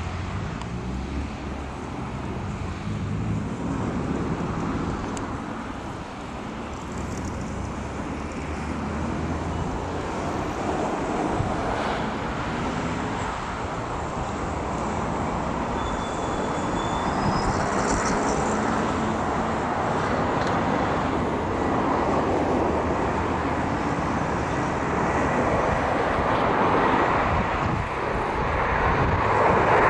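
Four-engine turboprop transport, a Lockheed C-130 Hercules, approaching low with gear down, its propeller and engine drone growing steadily louder over the steady noise of road traffic.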